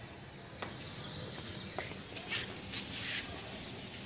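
Handling noise from a phone held close to the plant: irregular scratchy rubbing and rustling in short bursts, with a couple of sharp clicks near the start, over a steady low rumble.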